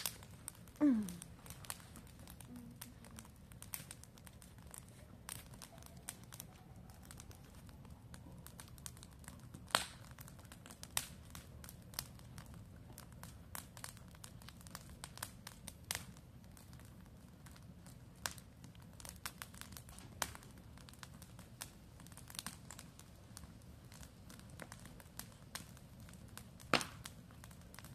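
Fire crackling under grilling skewers: irregular faint pops and clicks over a low steady hiss, with a couple of sharper pops.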